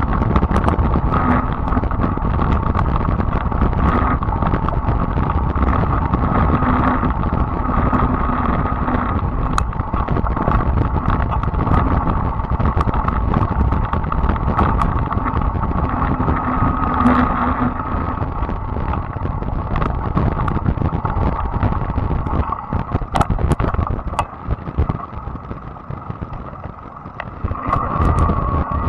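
Fat-tyre e-bike riding a dirt trail: wind buffeting the camera microphone over tyre rumble, with a steady whine from the bike. The sound gets quieter for a few seconds near the end.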